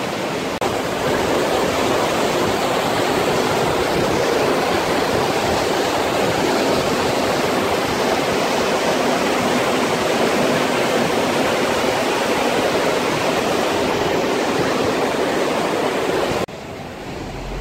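Fast mountain river rushing over boulders and rapids: a steady, loud wash of white water. It drops to a quieter level about a second before the end.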